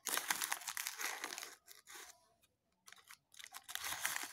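Foil sachet of instant baby cereal crinkling as a plastic spoon scoops the powder out of it, in two bouts with a near-quiet pause of about a second a little past the middle.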